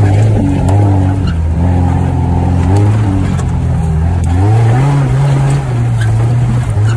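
Suzuki Sierra's swapped-in G16B 1.6-litre four-cylinder engine running under load while driving off-road in four-wheel-drive low range. Its note rises and falls with the throttle and climbs in pitch about four and a half seconds in.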